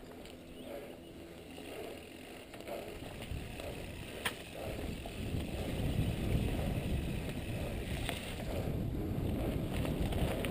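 Mountain bike rolling along a dirt and gravel singletrack: tyre noise over the ground and small rattles from the bike, getting louder about halfway through, with one sharp click about four seconds in.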